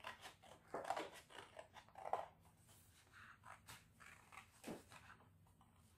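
Faint snipping of scissors cutting through coloured card, in short, irregular cuts with light paper rustle.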